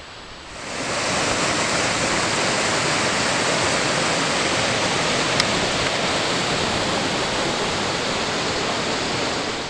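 River rapids rushing over boulders, a steady wash of white water that fades in during the first second.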